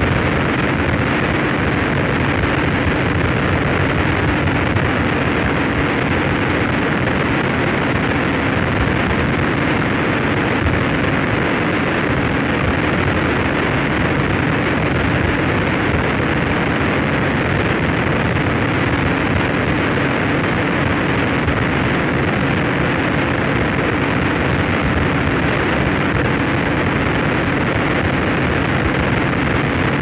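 Harsh noise wall: a loud, dense wall of distorted noise that holds steady without a break or change, heavy in the lows and mids with little treble, and a few steady low tones buried in it.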